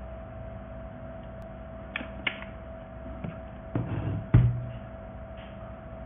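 Hard plastic clicks and knocks as the dust cup of a handheld vacuum cleaner is unlatched and pulled off the body. The loudest is a single thump about four seconds in, over a steady faint hum.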